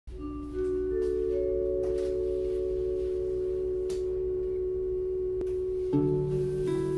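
Intro music: a few steady tones enter one after another and are held, then plucked string notes join about six seconds in.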